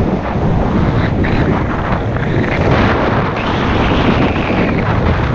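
Wind rushing over the microphone of a camera worn by a downhill skier, mixed with the hiss and scrape of skis on spring snow, growing rougher about a second in and again past the middle.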